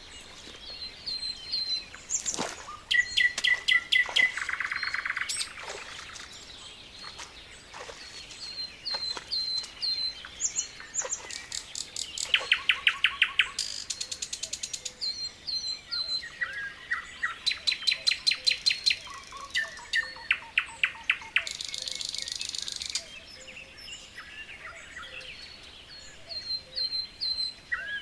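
Several wild birds singing together: short, high chirps mixed with fast rattling trills of evenly repeated notes, and a brief hissy buzz near the end.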